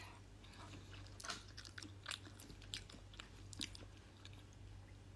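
A person chewing crunchy food close to the microphone: a handful of faint, separate crunches over a low steady hum.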